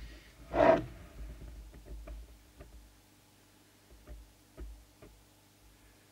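Handling noise from working on an open CB radio: one louder short burst less than a second in, then a few faint clicks and taps, over a faint steady hum.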